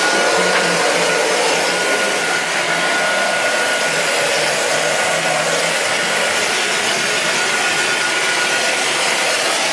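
PFT Ritmo L plastering machine spray rig running, with compressed air and render going through the spray line: a loud, steady hiss with a faint low hum. A thin steady whine stops near the end.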